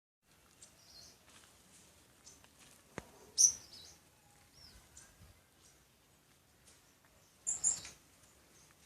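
Small birds chirping in short, high calls scattered throughout, with the loudest calls about three and a half seconds in and again near the end. There is a single sharp click about 3 seconds in.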